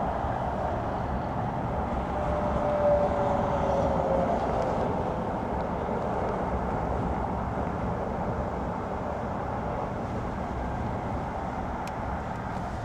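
Steady road and engine noise of a vehicle driving, with a faint whine that dips slightly in pitch a few seconds in; the noise slowly gets quieter toward the end.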